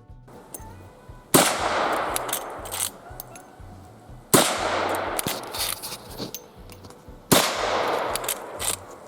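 Three shots from a Rossi R92 lever-action rifle in .357 Magnum, about three seconds apart, each trailing off in a long echo. Faint background music runs underneath.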